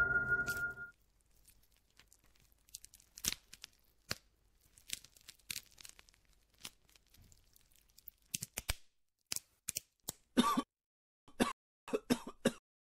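A man coughing in several short fits near the end. Before them come a few seconds of scattered small clicks and crackles.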